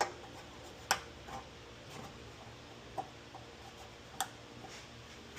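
A few sharp plastic clicks and taps, about four spread over several seconds, as a wiring-harness clip and connectors are handled and pressed into place.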